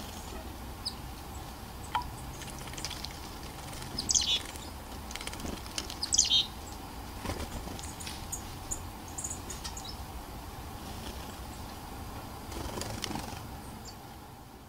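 Black-capped chickadees at a birdbath: two short, loud flurries of fluttering wings about four and six seconds in, with scattered faint high chirps.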